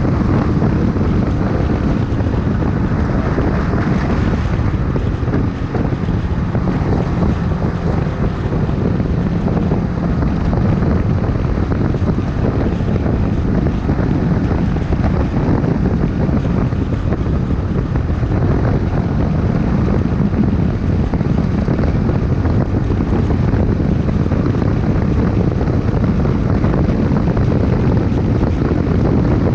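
Honda CBX 250 Twister's single-cylinder engine running at a fairly steady pace while riding, with heavy wind buffeting the microphone.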